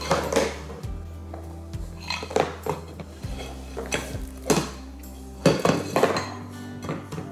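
A baby's plastic plate clattering and knocking against a plastic seat tray as she picks it up and handles it: a series of sharp clacks at irregular intervals, over background music.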